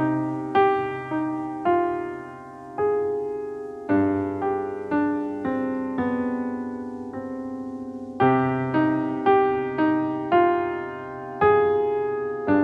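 Piano music: a slow melody of single struck notes over sustained lower notes, each note fading after it is played.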